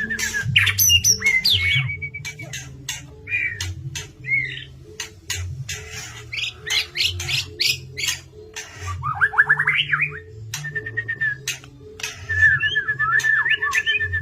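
White-rumped shama (murai batu) singing vigorously: a fast run of sharp clicks mixed with whistled notes and quick rattling trills, over a low pulsing backing underneath.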